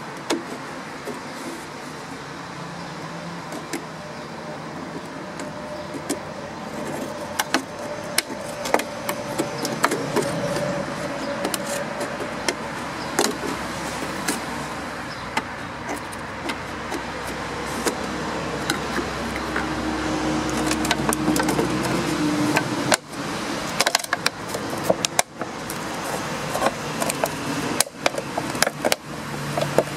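Scissors cutting through a thin plastic 2-litre soda bottle: irregular sharp snips and the crackle of the plastic flexing, over a steady background noise.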